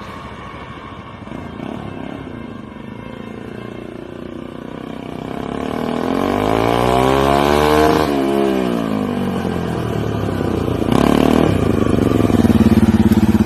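Bajaj Pulsar NS200 single-cylinder engine rising in revs over several seconds to a peak about eight seconds in, then dropping back. A second quick rise comes a little after eleven seconds, and the engine holds a steadier, higher note near the end.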